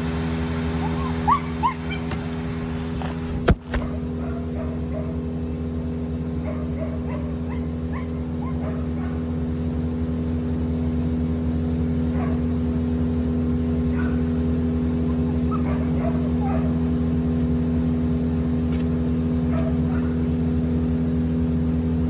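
Steady engine drone of tree-trimming machinery, with a dog whining in two short rising whimpers about a second and a half in and a sharp click a little later.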